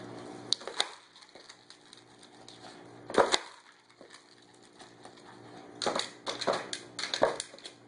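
A dog striking a gumball-style treat dispenser: a couple of light clicks, one loud sharp knock about three seconds in, then a run of knocks and clatter near the end.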